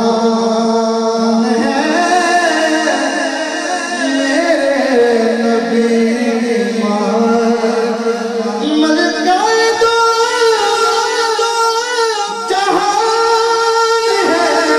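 A man singing a naat (devotional Urdu/Punjabi song in praise of the Prophet) into a microphone, in long held notes that bend and glide in pitch, over a steady sustained note.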